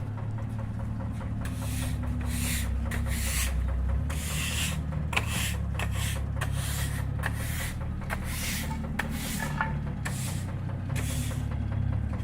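Small diesel engine running steadily while soil is scraped in short repeated strokes, about two a second.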